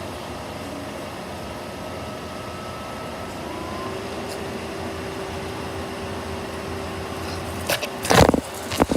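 Car engine idling steadily, with a few loud knocks near the end.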